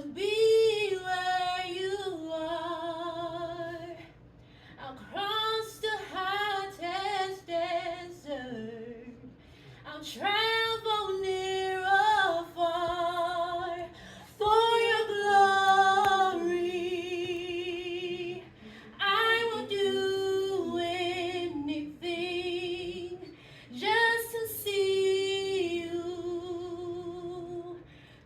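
A woman singing unaccompanied, in about six phrases of a few seconds each. The notes are held with a wavering vibrato, and there are short breaths between the phrases.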